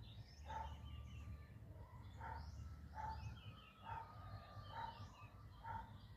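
A dog barking steadily, about seven barks a little under a second apart, while small birds chirp in the background.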